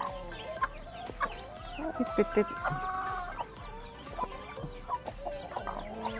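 Broody native hen clucking, with a drawn-out protesting call about two seconds in that lasts over a second, as a hand reaches under her on the nest. Many short high peeps of newly hatched chicks and rustling of the dry nest straw are heard around it.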